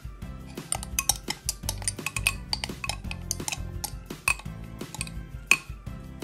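A spoon scraping and clinking against glass bowls as a wet vegetable mixture is scraped from one bowl into another: a quick run of sharp clinks, the loudest about five and a half seconds in, over background music.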